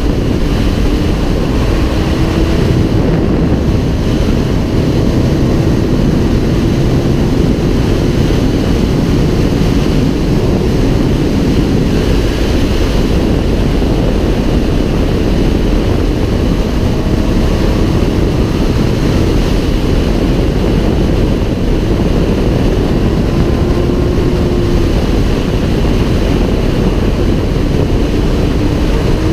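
Wind rushing over the microphone on a sport motorcycle riding at highway speed, the engine's steady note faintly underneath and rising briefly a couple of times.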